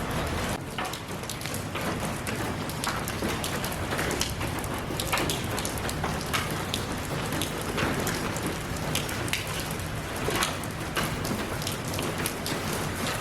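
Steady rain falling, with the constant hiss of the downpour and many separate drops and drips tapping sharply on a surface throughout.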